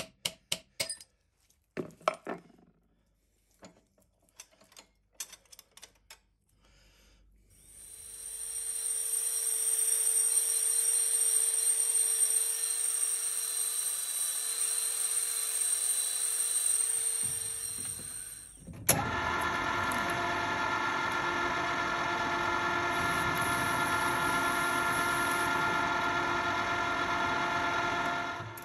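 A few sharp taps and knocks. From about 7 seconds in, a narrow belt sander runs steadily, grinding a small steel bracket, with a steady high whine. It stops, and just before 19 seconds a metal lathe starts turning a brass bar, running steadily with several tones until the end.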